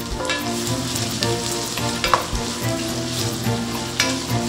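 Sliced onions sizzling and frying in hot oil in a stainless steel pot as they are stirred with a wooden spatula. There are two sharp knocks, about two seconds in and again near the end.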